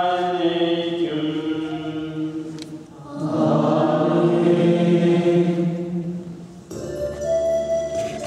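Liturgical chanting by a group of voices in long held notes, in two phrases with a short breath between them about three seconds in. About two-thirds of the way through, the singing gives way to steady ringing instrumental tones.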